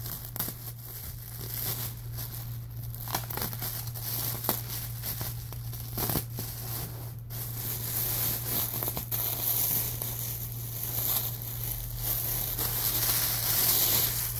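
Plastic packaging crinkling and tearing as it is pulled open and handled, growing louder near the end.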